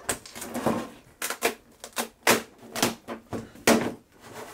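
3D-printed PLA mold sections being pried apart and pulled off a fiberglass boat hull: a run of sharp, irregular cracks and plastic clacks as the mold releases from the cured hull.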